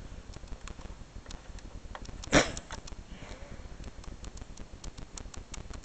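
Scattered light plastic clicks from a red handheld vacuum cleaner being handled and checked, its motor not running, with one short sniff about two and a half seconds in.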